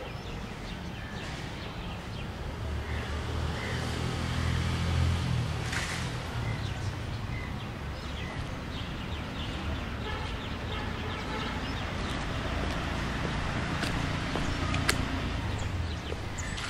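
City street ambience with a motor vehicle's engine rumbling past, loudest about five seconds in. A second vehicle swells and fades later. Short high chirps and a few clicks sound over the steady traffic noise.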